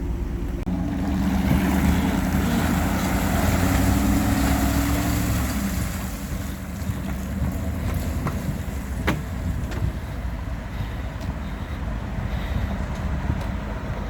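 A vehicle engine pulling a boat trailer up the ramp out of the lake, getting louder over the first few seconds under load and then running steadily. A couple of sharp knocks come about two thirds of the way through.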